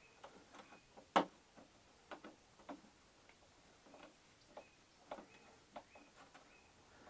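Faint, scattered light clicks and taps of small tools and screws being handled while taking apart a flat-screen TV, with one sharper click about a second in.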